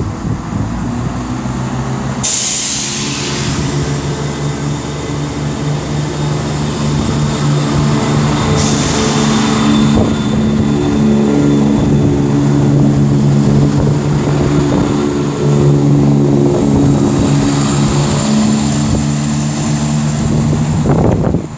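CrossCountry Class 170 Turbostar diesel multiple unit pulling away from the platform, its diesel engines droning steadily and growing louder. Two sharp hisses of released brake air, about two seconds in and again about eight seconds in.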